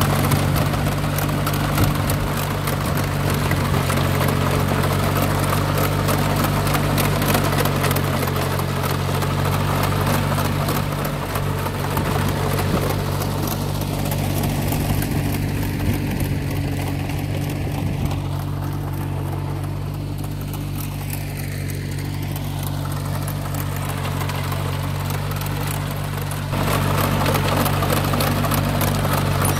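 A compact tractor's engine runs steadily under load while its rear rotary tiller churns through soil and weeds. The sound drops somewhat through the middle of the stretch, then comes back abruptly louder near the end.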